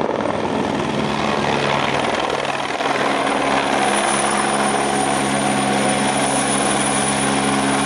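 Helicopter flying close by: a steady rotor and engine sound with a continuous high whine.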